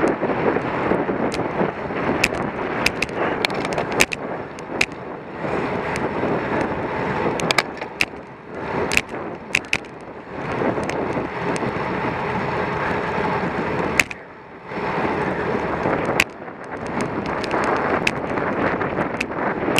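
Wind rushing over the microphone of a camera mounted on a racing bicycle at speed, with tyre noise on asphalt and scattered sharp clicks and rattles. The rush dips briefly about fourteen seconds in.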